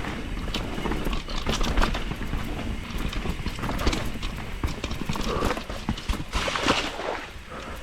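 Enduro mountain bike descending a wet, rocky trail: the tyres knock over rocks and roots and the chain and frame rattle in quick, irregular clatters over a steady low rumble of wind and rolling noise.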